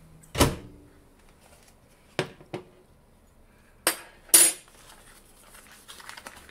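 A glass measuring cup and a metal spoon set down on a glass-ceramic stovetop: five sharp knocks and clinks. The loudest come about half a second in and just after four seconds, the first with a short ring.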